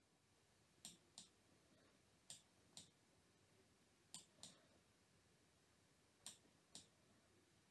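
Faint clicks of a computer mouse button, four pairs of quick clicks spaced a second and a half to two seconds apart.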